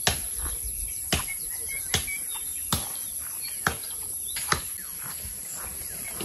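Steady walking footsteps, a little more than one step a second, over a constant high insect trill with a few faint bird chirps.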